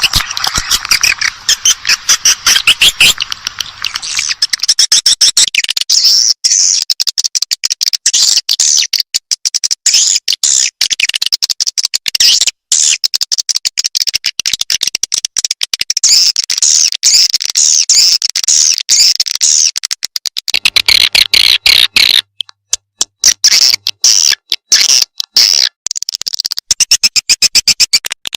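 Edible-nest swiftlet calls played as a lure recording: rapid high twittering chirps and dry clicking trills, repeating without pause. About two-thirds of the way through, the chirps thin out to scattered clicks for a couple of seconds before the twittering resumes.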